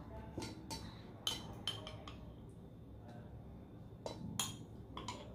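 Metal spoon clinking and tapping against a sauce jar and a stainless steel mixing bowl while sauce is scooped out: light, scattered clinks, a group in the first two seconds and another about four seconds in.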